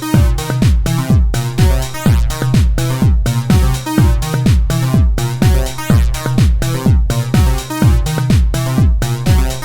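Instrumental electronic house track: a kick drum on every beat, about two a second, over a steady synth bass and repeating synthesizer patterns.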